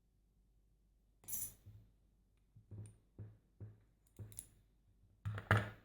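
Metal parts of a disassembled BKS Euro cylinder lock being handled: a string of light clicks and small knocks, about eight, starting a little over a second in, with the loudest pair near the end.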